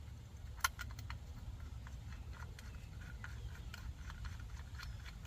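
Light clicks and taps of metal handling on a circular saw as the blade bolt is refitted and tightened, with one sharper click about two-thirds of a second in.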